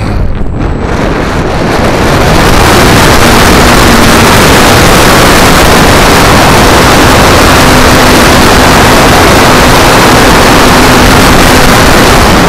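Wind and propeller noise overloading the tiny microphone of a keychain camera riding on a flying RC model plane: a loud, steady rushing noise that swells over the first two seconds and then holds, with a faint steady hum under it from the plane's motor.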